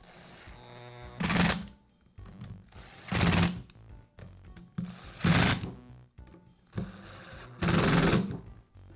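Cordless impact driver driving screws home in four short bursts, about two seconds apart, each a fast rattling hammer lasting about half a second. Faint background music plays underneath.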